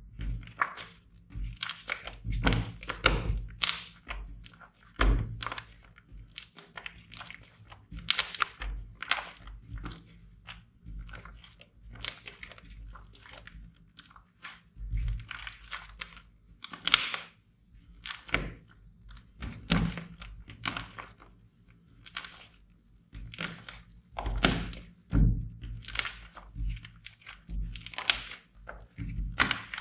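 Hands squishing, poking and pressing slime: irregular crackles, pops and squelches, with occasional low thuds.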